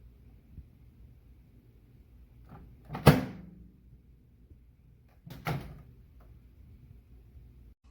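Microwave oven door clacking twice, about two and a half seconds apart: a loud latch-and-slam sound as the door is opened and shut, over a low steady hum.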